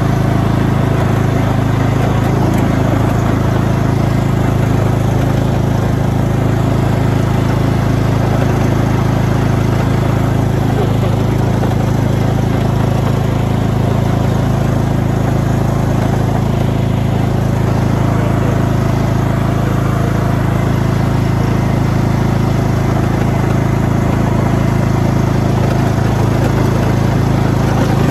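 Riding lawn mower's engine running steadily at an even speed while mowing through grass and dry leaves, heard from the driver's seat.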